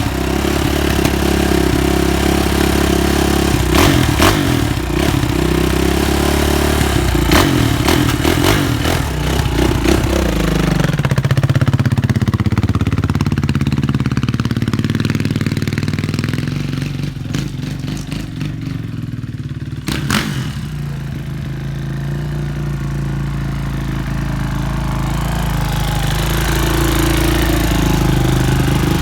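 Suzuki RM-Z450 single-cylinder four-stroke motocross engine running at a fast idle, with a few sharp clicks in the first ten seconds. About ten seconds in the revs fall away to a lower, steady idle, then pick up a little near the end.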